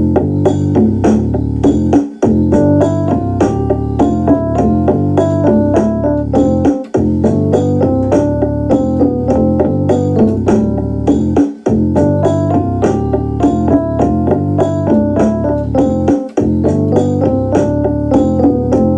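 Instrumental music: a line of quick notes stepping up and down over a steady low bass. The phrase repeats about every five seconds, with a brief break between repeats.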